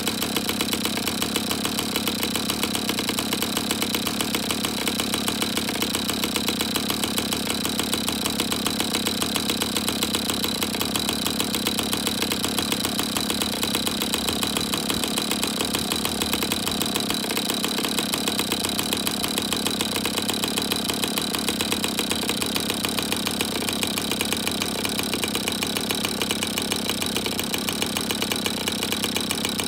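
Rossi 81 two-stroke glow model engine, freshly rebuilt and fitted with a tuned pipe, on a test run: it holds a steady high-speed, high-pitched note with no change in speed.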